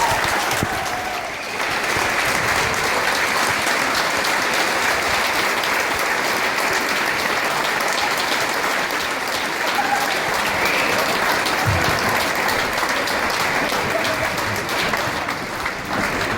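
Audience applauding steadily, a dense even patter of clapping hands.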